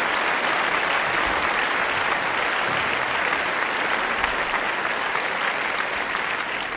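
A group of people applauding: a dense, steady patter of many hand claps that swells up and holds.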